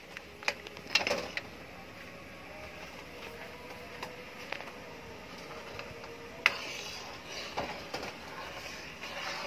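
Metal ladle stirring in a steel wok of broth, clinking and scraping against the pan now and then, with the sharpest knock about six and a half seconds in, over a faint steady hiss.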